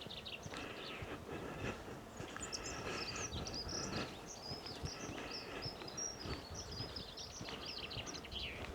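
Birds singing in open farmland: a busy run of quick, high chirps and trills from about two seconds in until near the end, over a faint outdoor background.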